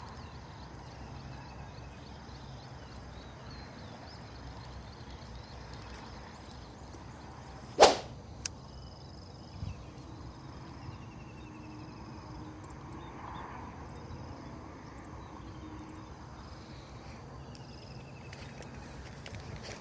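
A fishing rod swished through a cast: one sharp whip-like swish about eight seconds in, followed by a couple of faint clicks, over a steady outdoor background with faint high chirps.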